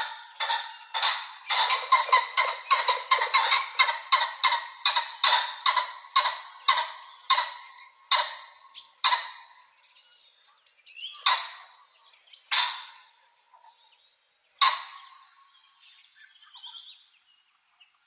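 Pheasant calling: a fast run of short, sharp calls, several a second, that thins out after about six seconds into single calls spaced one to two seconds apart.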